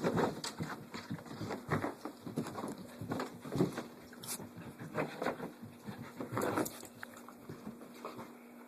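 Puppy racing around a small room, its paws scrabbling and pattering on the floor in irregular bursts of noise about a second or so apart, dying down near the end.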